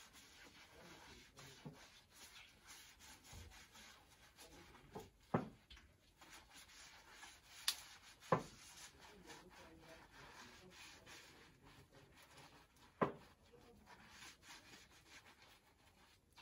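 A soaped sponge scrubbing skin, a faint steady rubbing, with a few short sharp clicks scattered through it.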